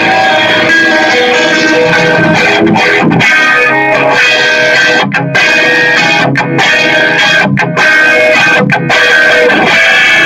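Electric guitar played through an amplifier, a demonstration run of sustained notes that stops briefly a few times in the middle.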